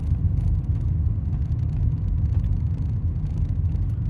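Steady low rumble of a vehicle driving slowly, with faint irregular clicking over it.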